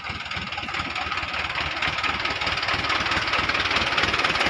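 Truck engine running with a rapid, even pulse, growing steadily louder.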